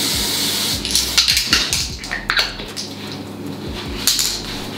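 Body shimmer spray hissing in one steady spray that stops under a second in, followed by scattered light clicks and rustling.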